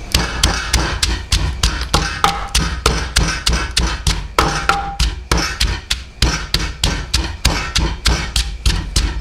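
Rapid, even chopping of food with a knife on a cutting board, about four to five strokes a second.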